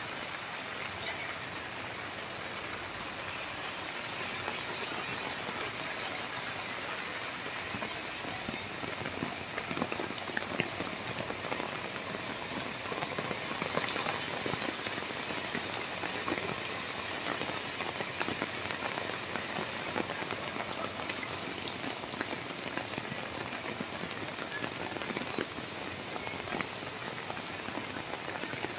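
Steady rain falling on wet paved ground: an even hiss with scattered sharp drop ticks.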